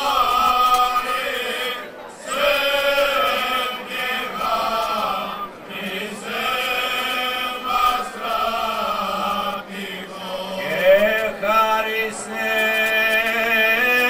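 Male choir singing in long held phrases, with short pauses between them about every three to four seconds.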